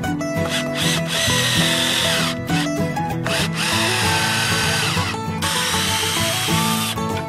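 Cordless drill running in three bursts of about a second and a half each, driving long screws through a 2x6 board into a wooden post; the whine drops in pitch at the end of each run as the screw bites in. Plucked-string background music plays under it.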